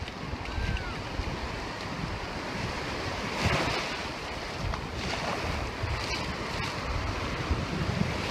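Surf washing up the shore with wind buffeting the microphone; a wave breaks and washes in about three and a half seconds in.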